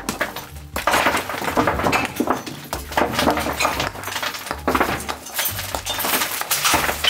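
Hammer blows breaking out hollow terracotta brick, with pieces of fired clay clinking and crumbling away, in rapid repeated strikes.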